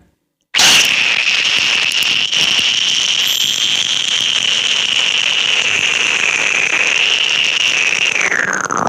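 A loud, steady crackling hiss with a high whistling edge that starts suddenly, holds for about eight seconds, then slides down in pitch and stops.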